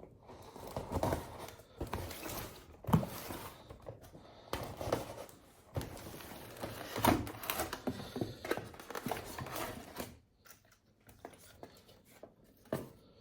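Cardboard box and packing being opened by hand to unpack a model train car: rustling, tearing and scraping of packaging with scattered sharp knocks, dying down to a few faint clicks about ten seconds in.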